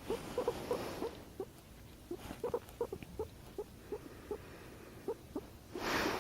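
Guinea pig purring in short vibrating pulses, about two or three a second, its response to a person's hiccups; a louder breathy hiccup comes near the end.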